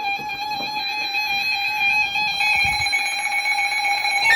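Weather radio alert tone: a single steady, buzzy electronic tone held at one pitch, signalling that a new warning is about to be broadcast.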